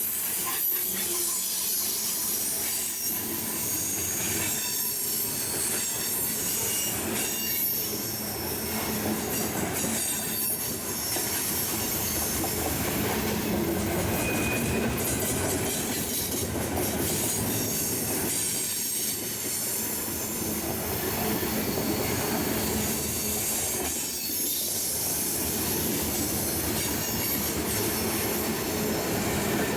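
Train cars rolling steadily past, steel wheels squealing on the rails with some clicking over the rail joints.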